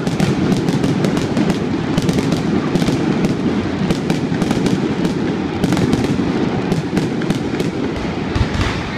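Fireworks display going off: a rapid, continuous string of bangs and crackles, many a second, over a steady low roar.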